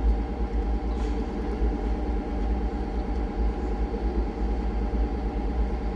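JCB telehandler's four-cylinder Kohler diesel engine idling: a steady low rumble with a few even tones above it.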